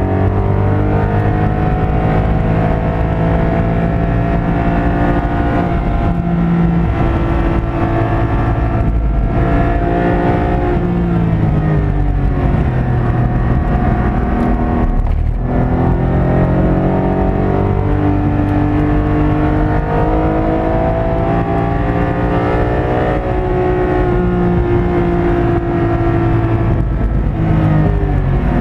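Porsche 718 Cayman GT4's 4.0-litre flat-six engine heard from inside the cabin at track speed, its pitch climbing under acceleration and falling away several times, with brief drops in between, over steady tyre and road noise.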